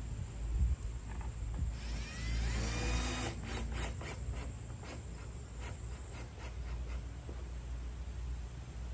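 Hand work on a car's plastic headlight assembly: a loud scraping rub with squeaks, then a quick run of sharp clicks, over a steady low rumble.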